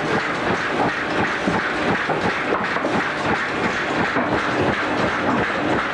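Workshop machinery running with a steady, dense clatter of rapid knocks over a continuous mechanical din.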